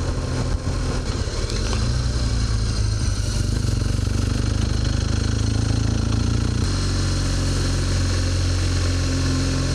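BMW GS motorcycle engine running steadily under way, heard from the rider's position with wind and road rush over it. The engine note changes abruptly about seven seconds in.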